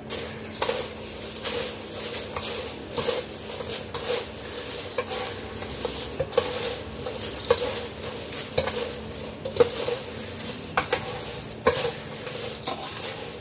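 Dry fried poha flakes and peanuts being tossed and mixed by hand and with a steel skimmer on a steel plate: crisp crunchy rustling with a metal scrape and clink on the plate about once a second.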